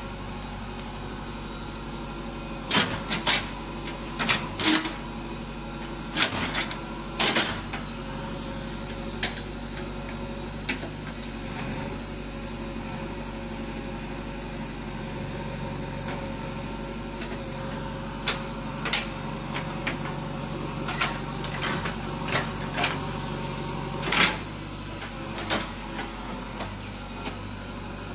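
JCB backhoe loader's diesel engine running steadily while its bucket digs into stony soil, with irregular sharp clanks and knocks from the bucket and arm, in clusters near the start and again in the second half.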